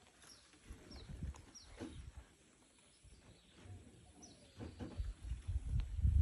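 Birds chirping in the background: short, high, falling notes repeated at irregular intervals. Low rumbling on the microphone grows louder near the end.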